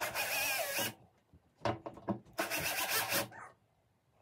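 Bosch cordless drill-driver with a Torx T15 bit running twice, about a second each time, undoing screws in a hob's stainless steel top plate, with a few sharp clicks between the two runs.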